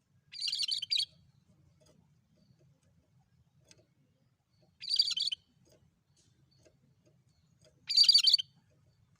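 Cucak kerinci songbird singing three short phrases of rapid high notes, a few seconds apart, the loudest phrase near the end.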